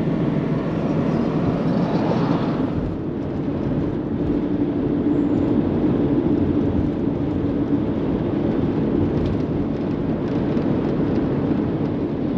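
Diesel vehicle driving at highway speed: steady road and engine noise, with a brief swell of hiss about two seconds in.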